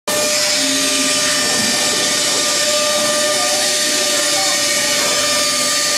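Pneumatic three-spindle CNC wood router running: a steady whine from its spindle motors over a constant hiss.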